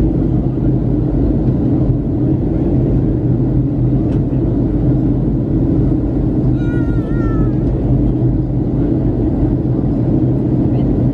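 Steady cabin rumble of a Boeing 737-800 on descent, heard inside the cabin from a window seat behind the wing: the CFM56-7B engines and airflow making a loud, even drone with a low hum. About two-thirds of the way through, a brief high wavering call sounds over it.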